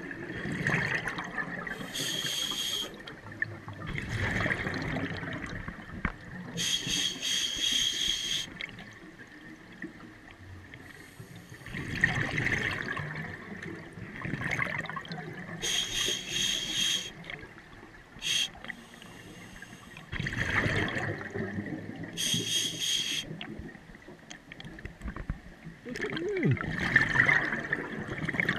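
Scuba diver's regulator breathing underwater: a hissing inhalation, then a rush of bubbling exhaust, repeating every few seconds.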